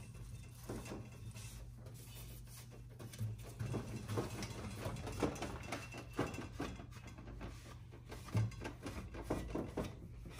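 A cloth rag rubbing and scuffing over the main-bearing saddles of an aluminium Subaru EJ257 engine case half as it is wiped clean, with a few light knocks from the case being handled on a metal bench. A low steady hum runs underneath.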